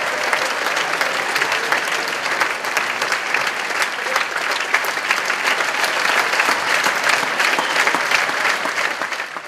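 Theatre audience applauding, dense, steady clapping that fades away suddenly at the very end.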